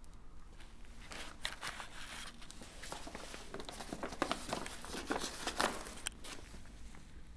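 Paper rustling and crinkling as the pages of a book are handled and turned, a dense run of dry crackles starting about a second in and stopping about a second before the end, loudest near the end of the run.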